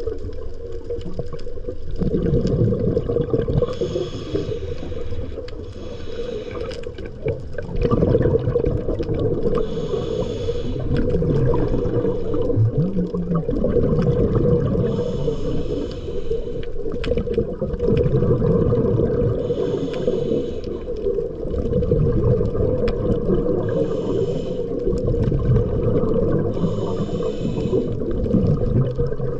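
Underwater sound of a scuba diver breathing through a regulator: a hissing breath every three to four seconds over a continuous bubbling, gurgling water rumble.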